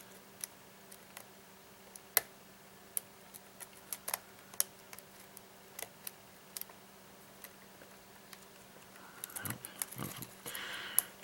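Small, sharp metal clicks and ticks of a lock pick and tensioner working inside a Yale padlock, coming irregularly about once a second, with a quicker flurry of clicks near the end.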